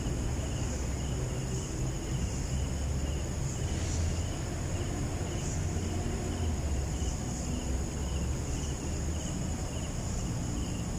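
Crickets and other night insects chirping: one high trill swelling and fading, and lower chirps repeating about twice a second, over a low rumble.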